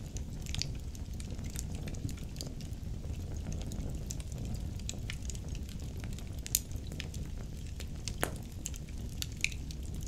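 Wood fire burning in a fireplace: a low, steady rumble of flames with scattered sharp crackles and pops from the burning logs. The loudest pops come about six and a half and eight seconds in.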